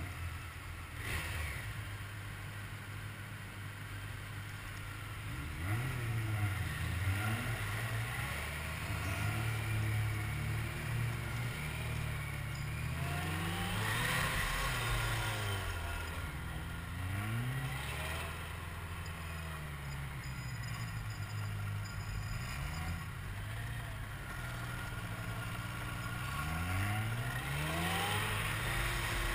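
Motorcycle engine revving up and falling back again and again, its pitch rising and dropping every couple of seconds, as the bike is worked through slow, tight gymkhana turns.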